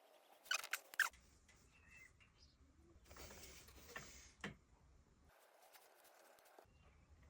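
Light handling sounds of a woodworking glue-up with clamps: a few sharp clicks about half a second to a second in, then a short rasping scrape with two more clicks from about three to four and a half seconds in.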